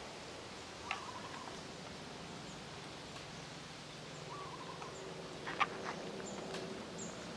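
Outdoor ambience: two faint short calls with a level pitch, about one second in and again past four seconds, over a steady distant low hum, with a few sharp clicks, the loudest about five and a half seconds in.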